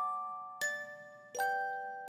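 Background music: a slow, gentle tune of bell-like struck notes, about one every 0.7 s, each a soft chord that rings and fades before the next.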